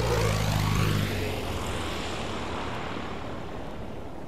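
Cessna 120 light single-engine propeller plane flying past low: the engine-and-propeller drone is loudest in the first second, its pitch drops as the plane goes by, and then it fades away.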